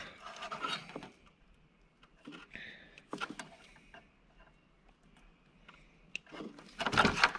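Hand wire stripper clipping and stripping the insulation off thin vehicle wiring: faint rustling with a few small sharp clicks, and a brief louder burst of noise near the end.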